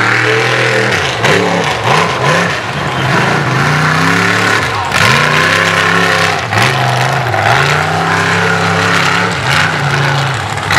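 Mud bog buggy's engine revving hard through a mud pit, its pitch climbing and dropping again and again as the throttle is worked on and off.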